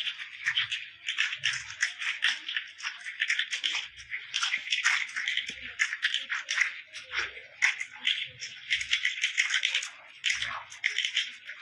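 Many computer keyboards being typed on at once: a dense, irregular clatter of overlapping key clicks, with an occasional soft low thud.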